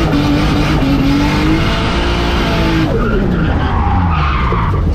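Drift car's engine held at high revs while the tyres skid through a slide; about three seconds in the revs fall away as the car spins out.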